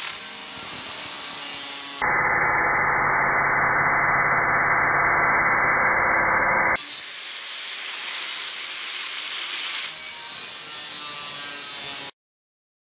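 Angle grinder cutting into the steel of an old hand saw blade, running steadily under load. It stops suddenly about a second before the end.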